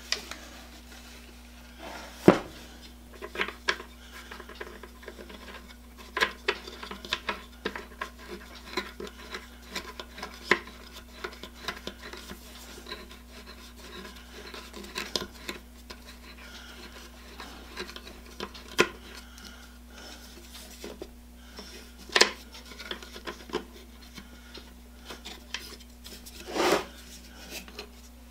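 Scattered clicks, taps and scrapes of a Black & Decker router being handled and put back together: the plastic base plate and metal motor housing turned and knocked against each other and the bench, with a few sharper knocks. A steady low hum runs underneath.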